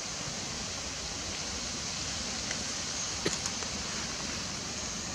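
Steady outdoor background hiss, even and unbroken, with a single faint click a little past three seconds in.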